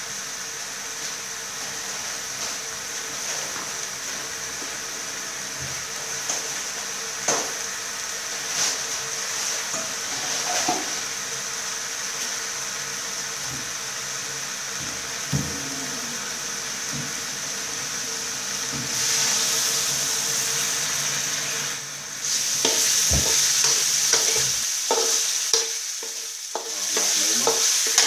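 Minced pork and chopped garlic sizzling steadily in a steel wok, with a metal spatula now and then clicking and scraping against the pan as it stirs. The sizzle grows louder in the last third.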